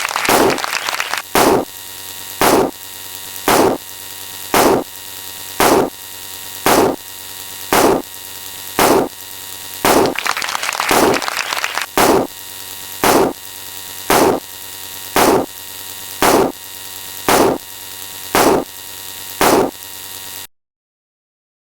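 A short, sharp sound effect repeating about once a second over a steady electrical hum, with two longer hissy swells of noise, one at the start and one about ten seconds in. It all cuts off suddenly near the end.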